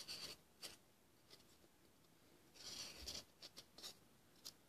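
Faint scratching of a marker pen writing on a block of expanded polystyrene foam: a few short strokes near the start and a longer run of strokes about midway.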